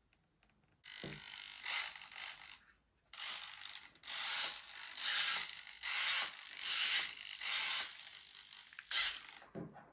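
Short mechanical ratcheting, grinding bursts from small parts being worked on the model's servo and control linkage, repeating about once a second.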